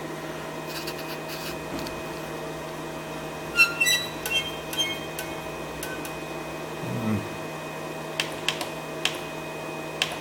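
Steady hum of an idle desktop CNC router, with a cluster of clicks and short tones about four seconds in and several sharp ticks near the end.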